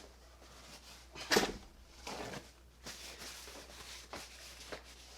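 Small metal padlock parts being handled: one sharp click about a second and a half in, then soft rustling and scraping.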